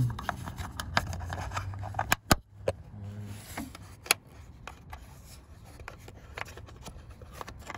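Metal wire spring clips on a Chrysler Town and Country's plastic air filter housing being snapped back into place by hand. Scattered sharp clicks and snaps with plastic scraping, the loudest clicks a little over two seconds in and around four seconds in.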